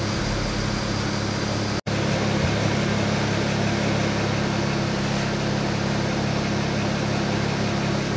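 BMW 335i's turbocharged straight-six idling steadily, heard from the driver's seat in the cabin; the sound drops out for an instant about two seconds in.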